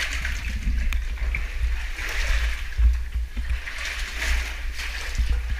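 Water sloshing and splashing as a caver in drysuit and diving gear moves through a flooded cave passage, with low knocks and rumble from the helmet-mounted camera.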